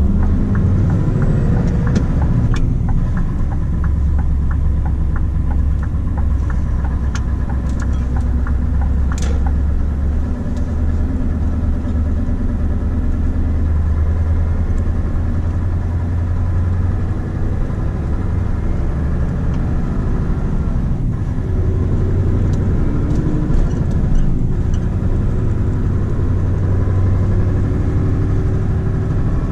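Scania R520's V8 diesel engine running as the truck drives, heard from inside the cab as a steady low drone. A light regular ticking sits over it during the first ten seconds or so.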